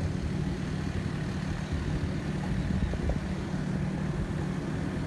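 Steady low hum of a motor vehicle engine idling, with a constant low drone and outdoor background noise and no distinct events.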